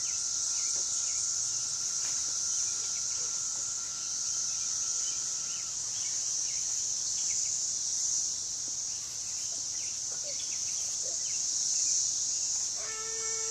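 Steady, high-pitched drone of insects singing in the surrounding summer woods, with a thin whistling tone underneath that stops about halfway through.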